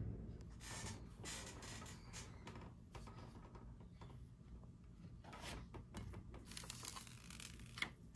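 Plastic parts bag and packaging crinkling and rustling as the kit parts are handled, with small scrapes and a sharper tap near the end.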